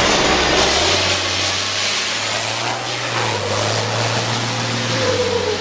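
Freightliner race truck's diesel engine running hard as the truck passes close by and pulls away uphill. Its low engine note steps up about a second in and drops back near the end.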